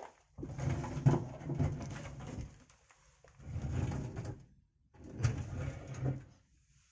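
Pigeons cooing: three low coos, each a second or two long, with short pauses between them.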